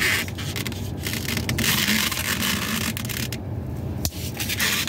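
A tight, fully inflated latex twisting balloon rubbing and scraping against fingers as it is twisted, with a few small clicks.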